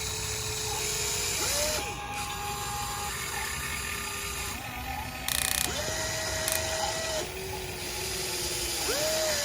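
Radio-controlled excavator's motors whining as the controls are worked, the pitch stepping up and down every second or two with short rising glides, and brief bursts of hiss.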